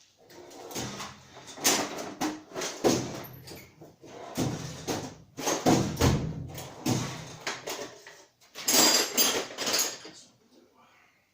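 Hand tools clattering and knocking as someone rummages through a drawer of tools. It is an irregular run of clanks and rattles that dies away about ten seconds in.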